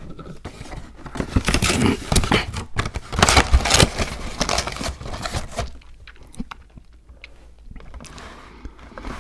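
Close-miked chewing and crunching of frozen Icee slush, the ice crackling, dense for about the first six seconds and then fainter with a few scattered clicks.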